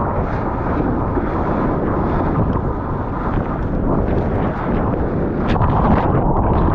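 Sea water rushing and splashing around a bodyboarder's point-of-view camera, with wind buffeting its microphone: a dense, steady rush of noise with scattered splash clicks.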